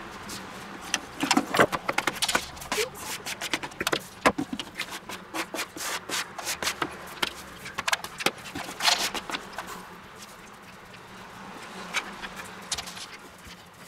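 Hands working pizza dough on a wooden cutting board, with a plastic dough scraper scraping semolina across the board: a busy run of scrapes, taps and rubbing for most of the first nine seconds, then only a few near the end.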